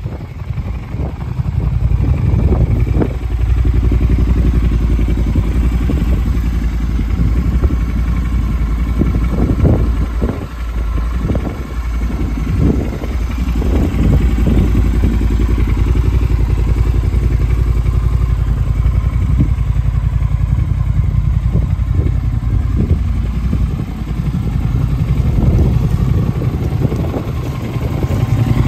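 Triumph Scrambler 1200 XE's 1200 cc parallel-twin engine idling steadily.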